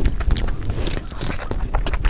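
Close-miked eating sounds: wet chewing with sharp mouth clicks and smacks while a hand scoops spiced rice and pushes a mouthful in.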